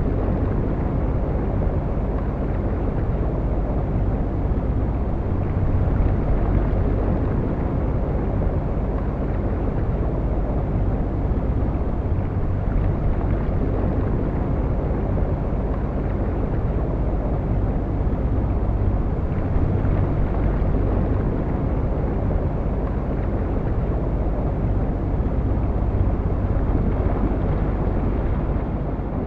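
Steady, low rumbling noise with no clear pitch, fading out near the end.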